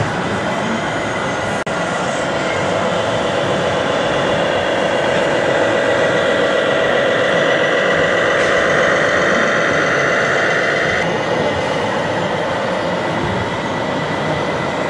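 Radio-controlled scale model MAN truck's electronic diesel-engine sound running steadily, with a whining tone that drops away about eleven seconds in.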